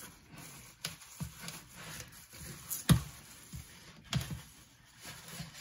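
A spatula tossing dressed lettuce in a plastic bowl: leaves rustling, with irregular knocks of the spatula against the bowl, the loudest about three seconds in.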